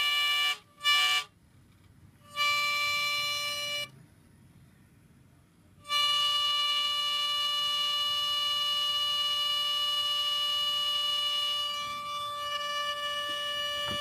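Zenmuse H3-3D gimbal on a DJI Phantom 2 giving a steady, high-pitched whine on one pitch, the abnormal sound of the gimbal's initial fault. The whine cuts out three times in the first six seconds, then holds steady.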